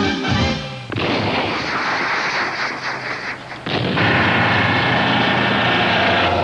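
Soundtrack music ends with a falling phrase. Then a rushing noise of a boat under way follows, with its engine suddenly louder about four seconds in and running steadily.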